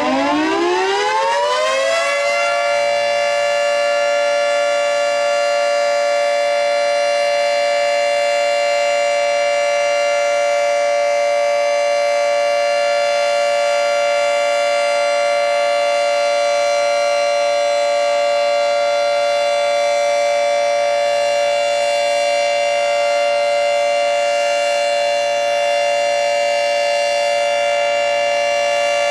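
3T22 tornado siren winding up over about the first two seconds, its pitch rising, then holding a steady, loud chord of several tones.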